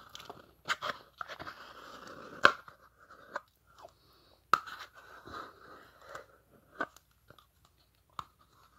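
Someone eating pudding close to the microphone: wet, smacking mouth sounds broken by several sharp clicks.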